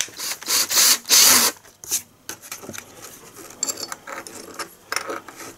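A few loud hissing strokes near the start, then quiet scraping and clicking as a 1/4-18 pipe thread tap is turned by hand, cutting threads into a hole drilled in a plastic air intake.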